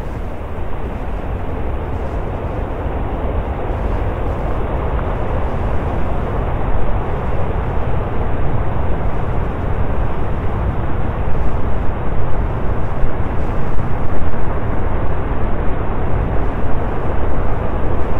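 Steady rushing noise of wind and sea with a deep rumble underneath, growing gradually louder.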